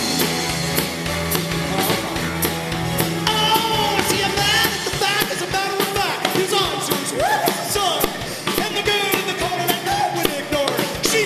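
Live rock-and-roll band playing with electric guitar, bass and drums on a steady beat. A male lead vocal comes in about three seconds in.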